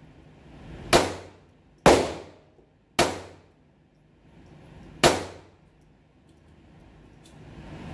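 Four loud, sharp bangs, unevenly spaced, each ringing out briefly before fading.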